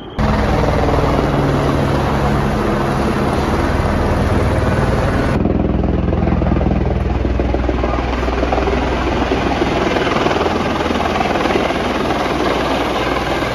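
Light helicopter flying in close to land: a loud, steady rotor and turbine noise with a low drone underneath. The sound grows brighter a little over five seconds in.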